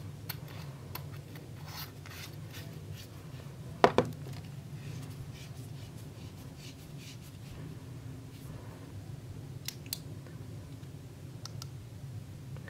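Quiet handling of a metal flashlight as its tail cap is screwed back on: faint scraping and light ticks, with one sharp click about four seconds in, over a steady low hum.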